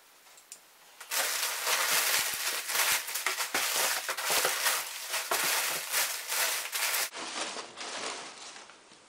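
Crumpled newspaper packing crinkling and rustling as hands dig through it and pull wads out of a cardboard box, a dense crackle of many small crunches. It starts abruptly about a second in and dies away near the end.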